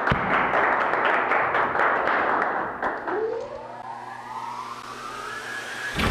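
Logo-intro sound effects: a burst of crackling, static-like noise with sharp clicks, then a rising whine of several tones climbing for about three seconds and ending in a sharp hit.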